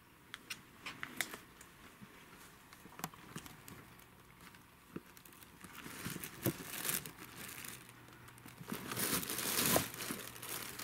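Plastic bags crinkling and rustling as a cat pushes its way between them and cardboard boxes, with scattered light taps and clicks at first. The rustling is loudest near the end.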